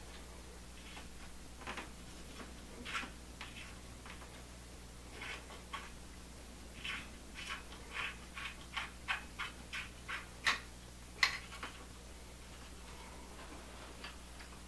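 Light metallic clicks and ticks as bolts on a Bafang BBS02 mid-drive motor's mounting brace are turned and tightened with a hand tool, coming in an irregular scatter with a quicker run of about three clicks a second past the middle. A faint steady low hum runs underneath.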